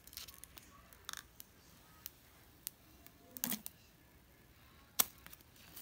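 Faint clicks and light plastic rustles from a clear plastic phone case being handled and its protective film peeled, with a sharper click about five seconds in.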